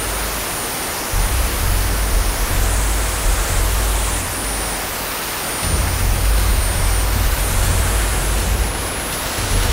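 KingTech K-310G model jet turbine running on a test stand: a loud, steady rush of exhaust with a thin, high turbine whine above it.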